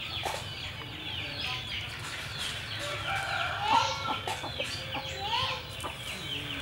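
Rooster clucking in short calls, the loudest just under 4 seconds in, over a repeated high chirping.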